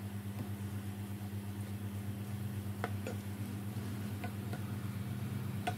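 Chicken nuggets deep-frying in hot oil in a pan over medium heat, a soft sizzle under a steady low hum. A few light clicks of a slotted spoon against the pan come in the second half.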